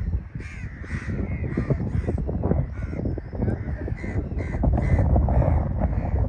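Birds calling over and over, short calls about two a second, over a steady low rumble.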